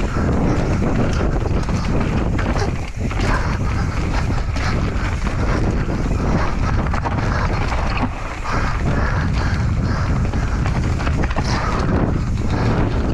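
Enduro mountain bike ridden fast down a trail, heard from the rider's camera: wind rushing over the microphone, tyres on dirt, and the bike clattering over rough ground in quick knocks. The noise eases briefly about three seconds in and again about eight seconds in.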